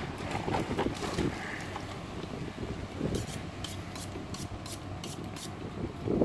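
Butcher's knife being honed on a steel: a quick run of about ten short, high scraping strokes, roughly four a second, starting about three seconds in, over wind rumble on the microphone.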